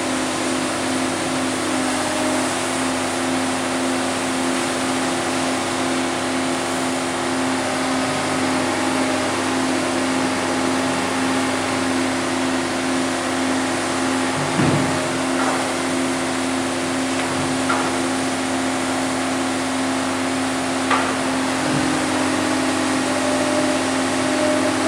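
Large excavator's diesel engine running steadily under load while it loads a truck, with a few short knocks or clanks from the bucket and load.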